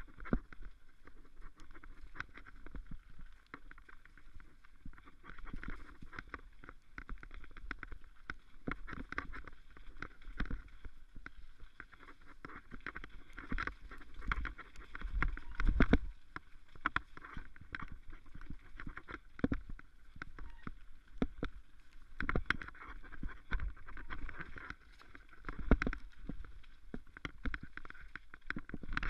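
Mountain bike ridden over rough forest singletrack, heard from a camera on the handlebars: continuous tyre rumble and rattling, with frequent sharp knocks from roots and rocks, the loudest about halfway through and again near the end.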